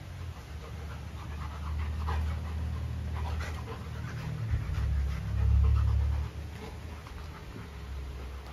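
Golden retriever panting, with a low rumble that swells to its loudest a little past the middle.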